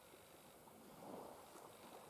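Faint wash of small sea waves on the shore, swelling once about halfway through.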